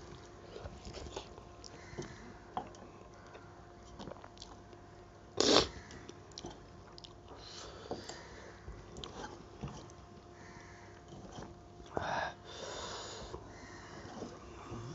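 Eating sounds of rice and dal eaten by hand from a steel plate: soft chewing and mouth clicks, and fingers mixing the rice. There is a short loud breath through the nose about five and a half seconds in and a longer noisy breath around twelve seconds, over a faint steady hum.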